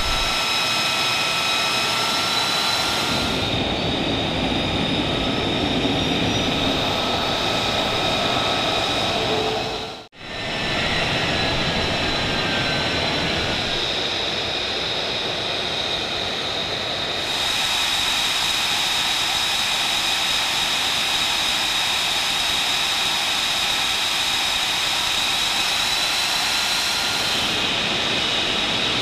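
F-35B Lightning II's F135 jet engine running at ground idle: a steady high-pitched whine over a broad rushing roar, with a brief dropout about ten seconds in.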